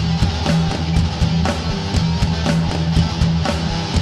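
Background rock music with guitar over a steady drum beat.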